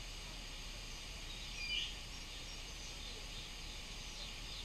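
Outdoor ambience: a steady high hiss of insects and distant birds, with one short high chirp a little under two seconds in.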